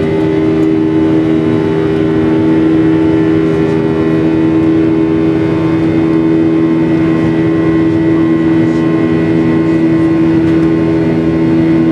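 Boeing 737-700 cabin in flight, heard from a window seat beside the CFM56-7B turbofan engine: a steady drone of a few held low tones over an even rush of air.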